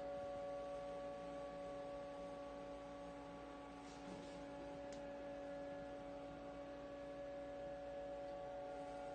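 Faint, steady machine hum made of several constant whining tones, with two light clicks about four and five seconds in.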